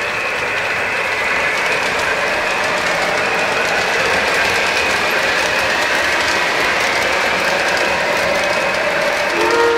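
Lionel O-gauge model train rolling past on three-rail track: a steady metallic rattle of the wheels over the rails as the locomotive and cars go by, with a faint whine under it. The locomotive's sounded whistle starts just at the end.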